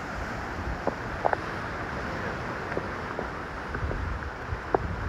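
Wind blowing across the microphone, an uneven low noise, with a few short sharp clicks scattered through it.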